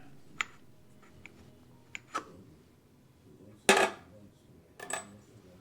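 Metal tools and parts being handled and set down on a workbench: about six separate sharp clinks and clacks, the loudest about two thirds of the way through with a brief metallic ring.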